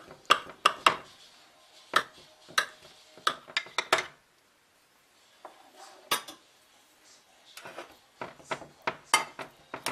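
A knife and then a slotted metal spatula knocking and scraping against a baking dish while cutting through and lifting out a portion of baked eggplant parmesan. A string of sharp clinks, a pause of about a second, then another run of clinks near the end.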